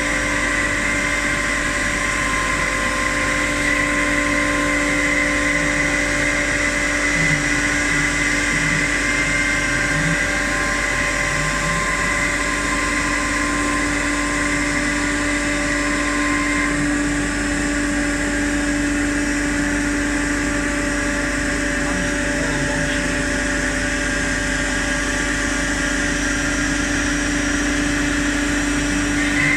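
CNC machine running steadily, a constant mechanical hum with a high whine that drops out about halfway through.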